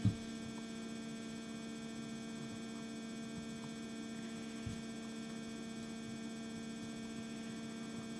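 Steady electrical mains hum, with two faint low knocks, the second about halfway through.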